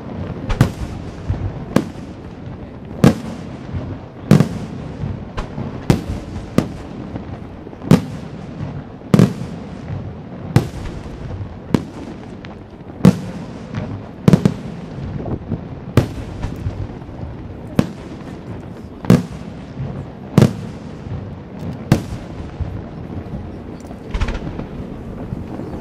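Aerial firework shells bursting one after another, a sharp bang about every second or so, each trailing off in a short echo over a steady background rumble. The bangs come closer together near the end.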